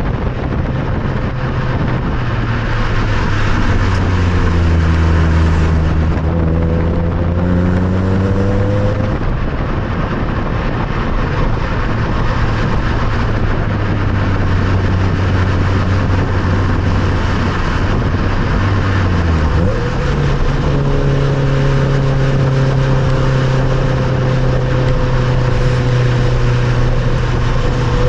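Nissan Note Nismo S's 1.6-litre four-cylinder running through a Nismo titanium muffler while driving, over steady tyre and road noise. The engine note climbs for a few seconds and drops back, holds steady, then steps up to a higher steady note about two-thirds of the way in.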